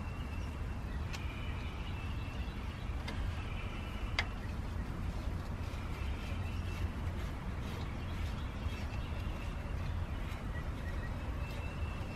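Steady low outdoor rumble with faint, intermittent high chirping. Over it come a couple of light clicks, about a second and four seconds in, from a flathead screwdriver working a hose clamp on a transmission cooler line.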